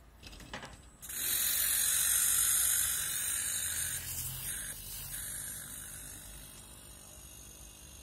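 Refrigerator compressor starting up and running on its repaired inverter board during a post-repair test. It comes on suddenly about a second in with a buzzing, rattling mechanical noise over a low hum, then slowly fades.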